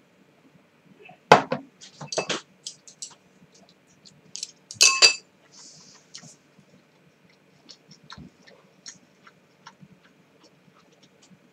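Beer glass knocking and clinking on a table: a few knocks between about one and two and a half seconds in, then a louder clink that rings briefly about five seconds in. Scattered faint ticks follow.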